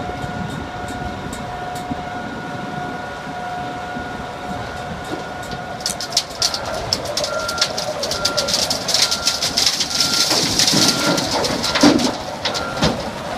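Komptech Crambo slow-speed, high-torque shredder running with a steady whine while it takes in a chunk of black oak. From about six seconds in, wood cracks and shredded chunks clatter down into a steel trailer. A backup alarm beeps about once a second throughout this later part.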